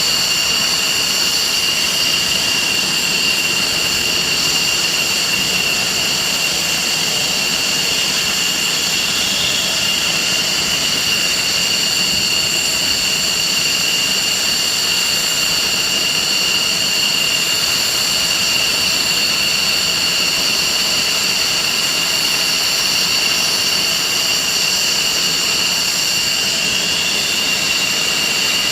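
F-16 fighter's jet engine running steadily on the ground, a loud continuous whine of several high pitches over a rushing noise, holding the same pitch throughout.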